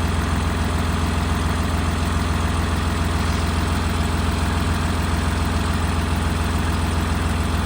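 A vehicle engine running steadily with a deep, even hum.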